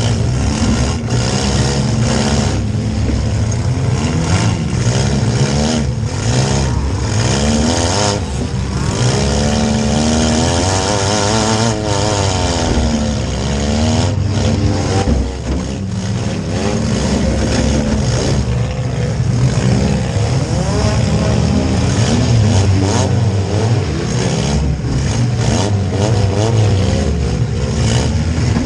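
Compact demolition derby car's engine revving up and down hard, heard from inside the cabin, with frequent knocks and bangs from the car's body.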